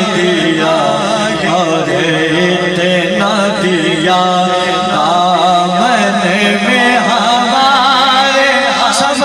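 Male voice singing a naat in a drawn-out, wavering melodic line, amplified through a microphone and sound system.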